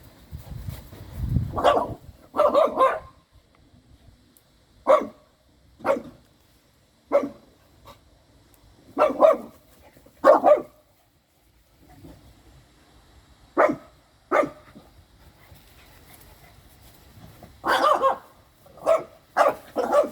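Dogs barking in play: about a dozen short, sharp barks at irregular intervals, some coming in quick pairs, with a low rumble near the start.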